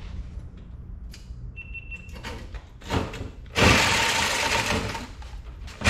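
A few light handling knocks, then about three and a half seconds in a reciprocating saw starts and runs, its blade cutting into a copper radiator coil. It cuts out briefly just before the end.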